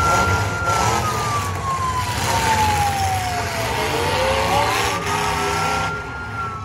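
A siren winding up quickly, holding its high note and then sliding slowly down, twice, about four seconds apart. Underneath it, the engines of the demolition derby cars run steadily.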